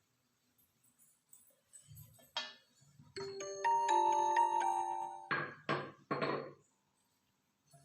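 A short chiming jingle of several bell-like ringing notes, like a glockenspiel, followed by three quick clattering noises.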